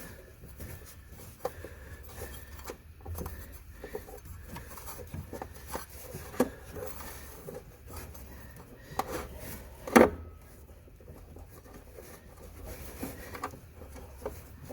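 A rubber CVT drive belt being worked by hand around a clutch sheave and housing, giving scattered rubbing and light knocks, with one sharp, louder knock about ten seconds in.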